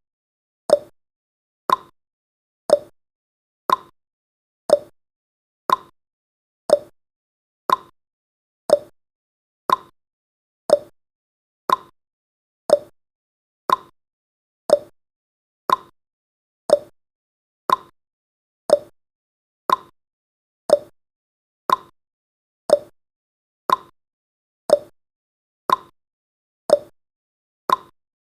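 Clock tick-tock sound effect of a countdown timer: one sharp tick each second, alternating between a higher and a lower pitch, perfectly regular.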